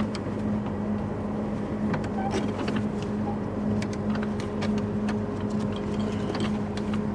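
Case IH combine running steadily with a constant hum, with scattered light clicks as wire is threaded through a pin's ring on the corn head snoot.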